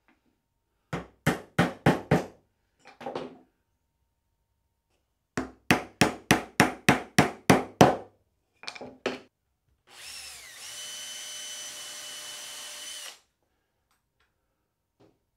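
Claw hammer rapping on a wood scrap to drive a ball bearing into a hard maple block: a quick run of about five blows, a few lighter taps, then a run of about nine blows at roughly three a second. Later comes a steady whirring hiss with a high whistle, lasting about three seconds.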